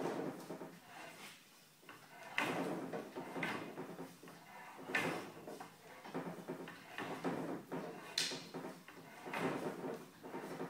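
Rotax 912 being burped by turning the propeller over by hand with the oil tank cap off: a string of irregular gurgling and air-rushing sounds from the oil tank every second or so, with one sharper click about eight seconds in. The gurgle is air and oil being pushed from the crankcase back into the tank, the sign that the oil has returned for an accurate level check.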